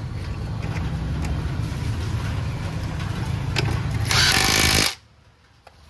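Cordless impact wrench hammering a bolt tight at the scooter's rear wheel, one loud burst of just under a second about four seconds in that stops abruptly. Before it, a steady low hum with small clicks of hand work on the parts.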